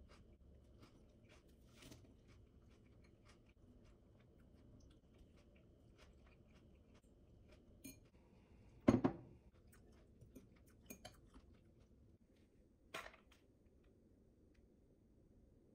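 Quiet eating sounds: a metal fork clicking and scraping in a glass bowl of salad, with chewing and crunching. A louder single knock comes a little past halfway, and a smaller one near the end.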